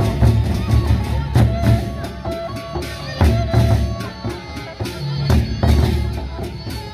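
Sasak gendang beleq ensemble playing: big double-headed barrel drums beaten with sticks in a driving rhythm, with metallic crashes and a short repeating melodic figure above the drums.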